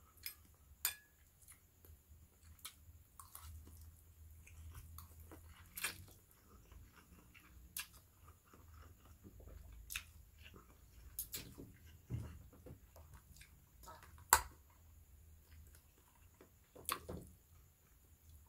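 A person chewing and slurping instant fried noodles, faintly. Scattered short clicks break through, the sharpest about two-thirds of the way through.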